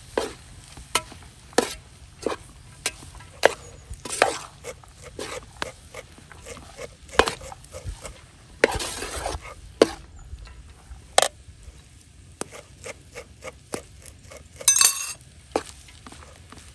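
Long-handled perforated metal skimmer stirring rice in a large metal pan: irregular sharp clinks and scrapes of metal on metal, about one or two a second, with two longer scrapes, one midway and one near the end.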